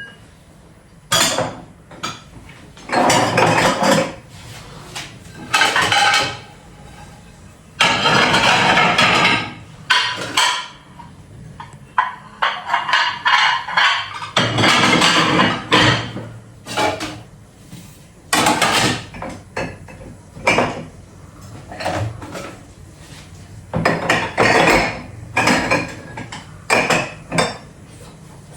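Kitchen utensils and dishes clattering and knocking as they are handled and put away, in irregular bursts a second or two long with short pauses between.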